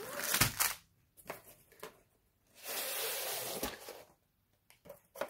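Diamond-painting packaging being handled: plastic wrap rustling and a sealed strip of drill bags set down on a cutting mat. There is a soft knock about half a second in, a stretch of rustling around three seconds in, and a second knock shortly after.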